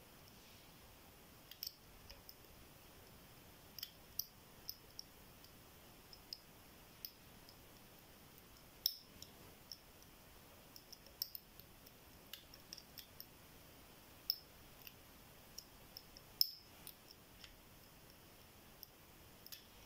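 Faint, irregular clicks of a dimple pick working the pin stacks of a GLK 10-pin euro dimple lock cylinder under light tension, with a few sharper clicks scattered among them.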